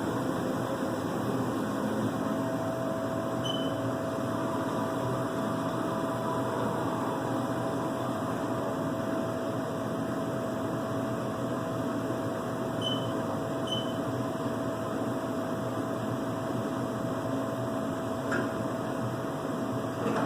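Haas CNC mill running with a steady mechanical hum and hiss; a steady whine joins about two seconds in and holds. A few faint short high beeps sound along the way.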